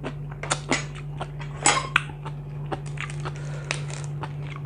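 A person chewing and biting crunchy food close to the microphone, an irregular string of sharp crunches and clicks, over a steady low hum.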